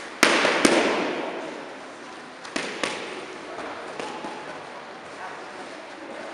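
Boxing gloves punching focus mitts. Two loud, sharp slaps about half a second apart near the start are followed by lighter hits every second or so, each echoing in a large hall.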